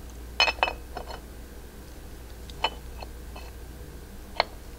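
Light metallic clinks and clicks of cam-chest parts being handled as an S&S cam plate is fitted onto a Harley-Davidson M8 engine: a few clinks together just under a second in, then single clicks spaced out through the rest.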